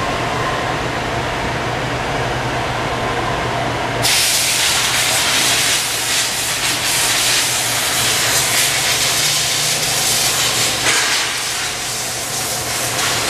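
Motorcycle rear rim spinning fast on a wheel spin-test stand: a continuous whir with a steady low hum under a hiss. About four seconds in the hiss suddenly grows louder and brighter, then holds steady.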